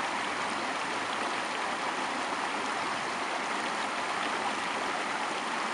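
A shallow river rushing over rocks in a riffle: a steady, even rush of water.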